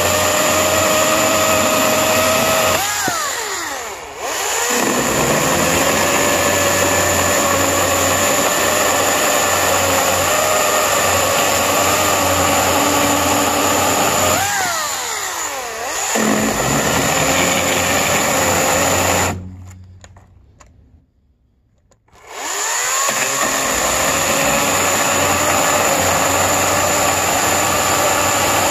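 EGO 14-inch cordless electric chainsaw cutting through wooden blocks, its motor giving a steady whine. Twice the motor winds down in pitch between cuts and then spins back up, and a little past the middle it stops for about three seconds before starting again.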